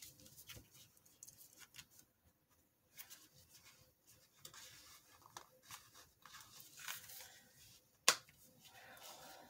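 Hands working open a small box of postcards: paper rustling and scraping with light handling knocks, and one sharp click about eight seconds in.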